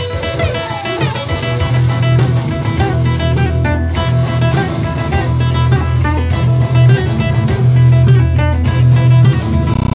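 Improvised guitar music: a classical guitar plucking quick notes over a low sustained tone that starts about a second in and holds until near the end.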